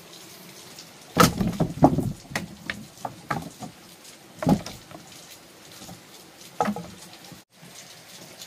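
Irregular knocks and clatters of hard objects being handled, about seven in all, bunched together in the first few seconds, with single knocks after that.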